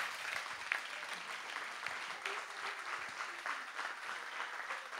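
Audience applauding, a steady clapping.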